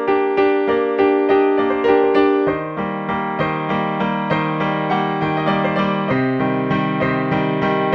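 Background music on electric piano: notes repeating at an even pulse, with a bass part coming in about two and a half seconds in and stepping lower near six seconds.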